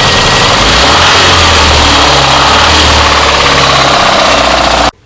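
VAZ 21099 four-cylinder petrol engine running and revved, with a knock that the mechanic takes for a worn connecting rod. The sound cuts off suddenly near the end.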